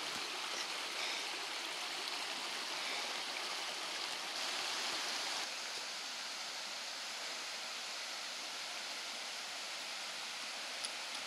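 A flowing creek with a steady rush of running water, a little louder for about a second around four to five seconds in.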